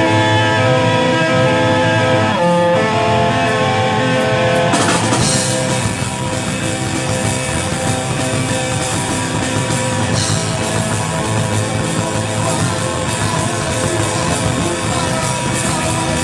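Punk rock music: distorted electric guitar chords ringing out, then about five seconds in the full band crashes in with drums and guitars playing dense and loud.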